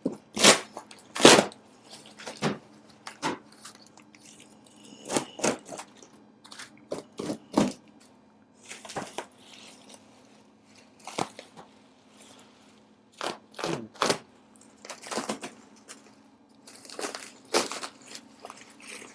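A cardboard shipping box being opened by hand: irregular tearing, cracking and crinkling of tape, cardboard and packing material, over a faint steady hum.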